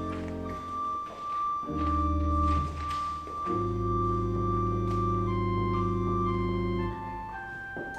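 Chapel organ playing slow, held chords: a long high note sustains on top while the deep bass notes change a few times underneath.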